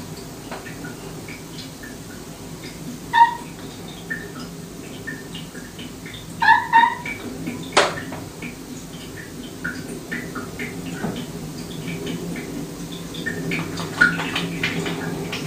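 A cat giving short meows, the two loudest about three seconds and six and a half seconds in, over a steady low hum. A sharp click comes near the middle, and a run of quick clicks near the end.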